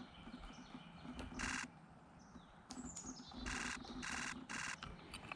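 Nikon Z9 camera firing in rapid continuous bursts: four bursts of fast shutter clicks, about half a second each, one a little over a second in and three close together near the end. Faint bird calls sound between them.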